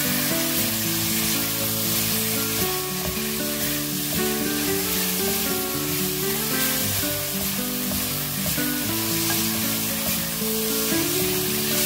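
Squid and vegetables sizzling in a hot nonstick frying pan over high heat as they are stir-fried with wooden spatulas, a steady frying hiss. A light background melody plays under it.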